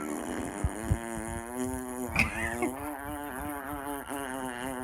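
A man making a fart sound with his mouth: one long, buzzing raspberry held at a fairly steady pitch that wavers slightly.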